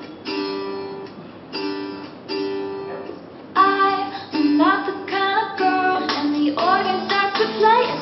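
Music played through a small portable Bluetooth speaker: separate plucked guitar notes, then a voice singing with sliding pitch over the accompaniment from about three and a half seconds in.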